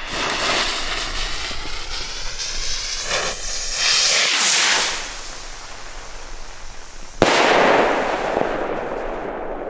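Keller 'The Face 3' devil-head firework rocket: the lit fuse hisses, the rocket whooshes off about four seconds in, and about seven seconds in a sharp bang as it bursts into red stars, followed by a fading hiss.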